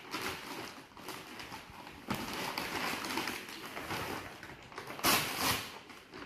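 Plastic gift bag rustling and crinkling as it is handled and pulled open, with a louder crinkle about five seconds in.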